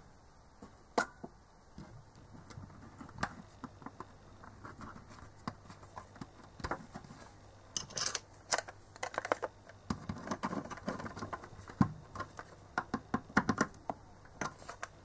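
Light clicks, taps and scrapes of hands fitting small nuts and screws back into a multimeter case while handling it. The small knocks come more often in the second half.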